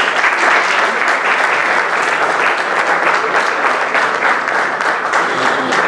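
Audience applauding in a hall: steady, dense clapping from many people.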